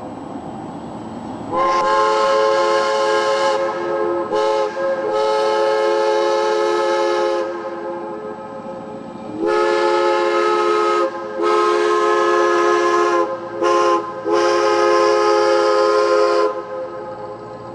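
Diesel locomotive's multi-chime air horn sounding two sequences of blasts, the second a long, long, short, long grade-crossing signal. The chord holds steady through each blast and trails off after the last blast of each group.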